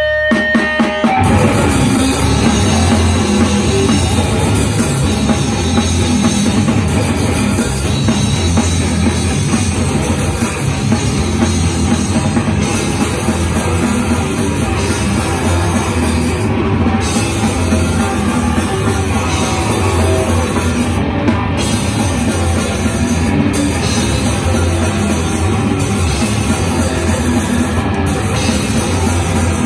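Live heavy rock band with a drum kit playing loud. The full band crashes in about a second in over a held electronic drone, then plays on dense and steady.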